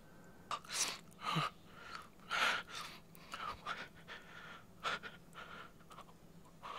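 A man breathing hard in short, uneven gasps and pants, about a dozen breaths, over a faint steady hum.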